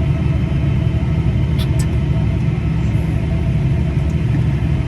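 Tractor engine running steadily, heard from inside the cab as a continuous deep rumble, with a couple of faint clicks about a second and a half in.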